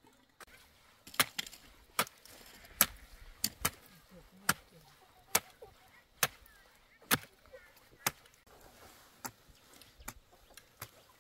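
Chopping: a dozen or so sharp blade strikes at an even pace, a little under one a second.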